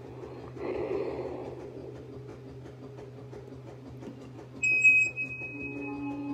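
A breathy rustle into a karaoke microphone about a second in, then a sudden loud high electronic beep that fades out over about a second and a half. Near the end, sustained notes of a backing track begin through the karaoke microphone's speaker.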